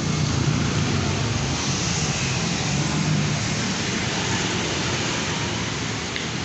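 Steady motor vehicle and road traffic noise.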